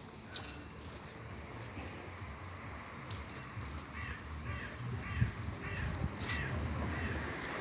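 A bird calling from about four seconds in: four short calls in quick succession about half a second apart, then one more, with a few sharp knocks and a low rumble beneath.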